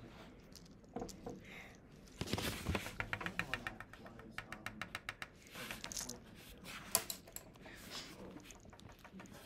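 Quick runs of light clicks and taps, several a second, over soft rustling, with a sharper single tap about seven seconds in.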